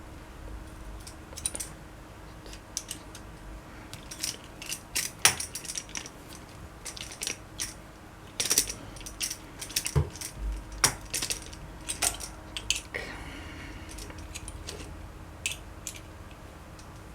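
Small metal parts and tools clinking and knocking against each other as they are handled, in a scatter of irregular sharp clicks.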